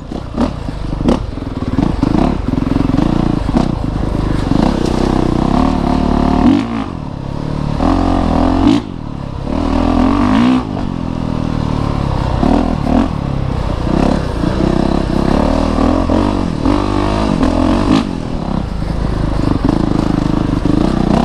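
Honda CRF450RX's 450cc single-cylinder four-stroke engine heard close up while trail riding, revving up and down as the throttle is worked, with two short throttle-offs in the middle. The bike clatters over the rough ground.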